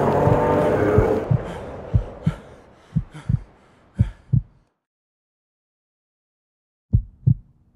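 Trailer soundtrack: pitched music fades out in the first second, under a heartbeat sound effect of paired low thumps about once a second. The thumps fade away, about two seconds of silence follow, and the heartbeat starts again near the end.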